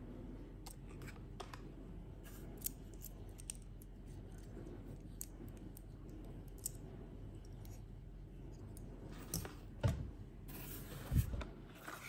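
Light clicks and taps as the parts of a Tomica die-cast mini crawler crane toy are moved in the hands, then cardboard toy boxes being handled, with a brief rustle and two dull knocks near the end.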